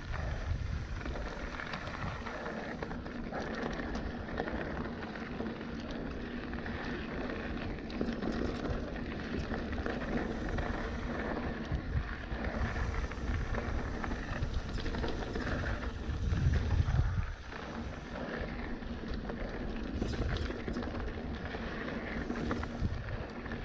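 Trek Remedy mountain bike rolling down a dirt trail: tyres crunching over gravel and rock under steady wind noise on the microphone, with a louder rumble about 17 seconds in.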